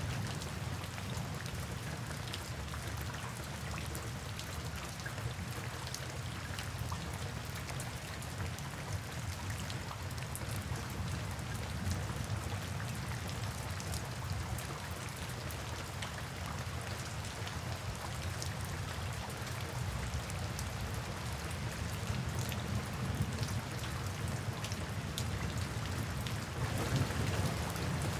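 Steady rain falling, with separate drops ticking close by and a low rumble underneath.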